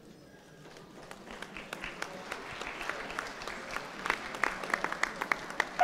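Audience applauding, starting faint and building up from about a second in to a fuller round of clapping.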